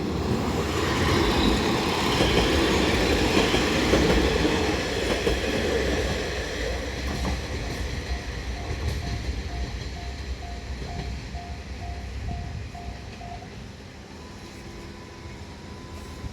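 A train passing over a level crossing, loudest in the first few seconds and then fading away, while the crossing's warning bell dings about twice a second. The bell stops about 13 seconds in as the crossing clears.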